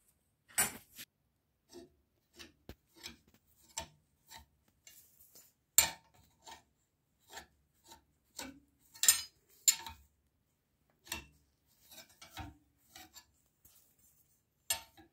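Twisted iron bar knocking and scraping against the steel pins of a bending jig as it is bent by hand into a C scroll: irregular metallic clicks and rubs, the loudest about six and nine seconds in.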